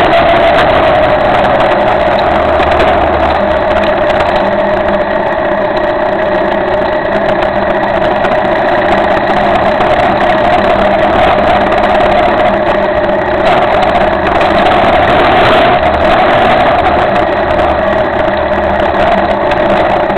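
Cagiva Elefant 600 motorcycle engine running steadily under way, a continuous loud drone with only small swells in level.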